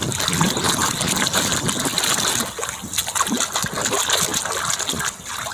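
Water sloshing and splashing as a hand scrubs a mud-covered plastic toy camel underwater, with many small splashes.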